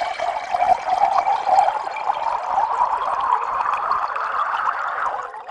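Physics-based simulated sound of a stream of water pouring into a glass tank, splashing and bubbling, its pitch rising slowly as the tank fills. It stops abruptly near the end.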